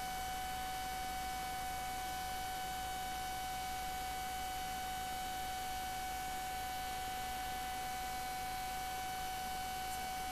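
A steady, unchanging high tone with fainter overtones above it, over a soft hiss.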